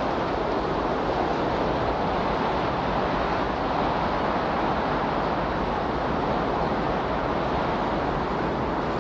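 Steady rushing noise, like surf or wind, holding an even level without rising or falling: the masking sound bed of a subliminal audio track.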